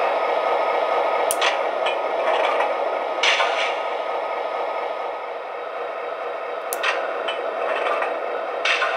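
MTH Proto-Sound 3.0 sound system of an O-scale SD50 model locomotive playing its diesel engine sound through the model's small speaker, a steady running sound, with four short sharp sounds standing out over it.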